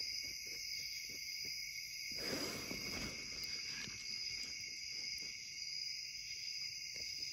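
A steady chorus of night insects, crickets, shrilling from the creek banks, with a brief soft swish of water about two seconds in.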